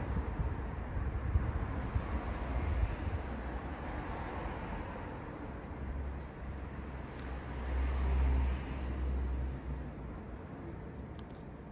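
Low rumble of road traffic going by, with one vehicle swelling louder about eight seconds in and then fading.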